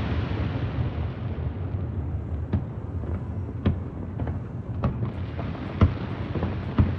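Fireworks display: a steady low rumble of bursts, with sharp single bangs about once a second in the second half.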